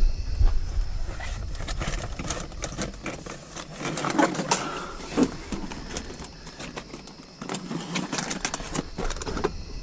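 Irregular clicking and clattering of hard plastic, as goose silhouette decoys are handled, with some low wind rumble on the microphone in the first two seconds.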